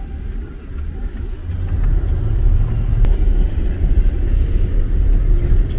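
4x4 driving over rough sandy ground, a low rumble heard from inside the cabin that grows louder about two seconds in.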